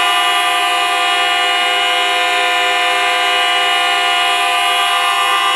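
A loud, steady held chord of several pitches that neither changes nor fades.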